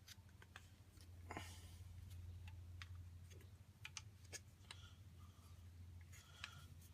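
Near silence: faint scattered clicks and light taps of small objects being handled, over a low steady hum.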